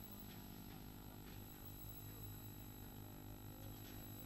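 Faint, steady electrical hum in the recording, with nothing else clearly heard.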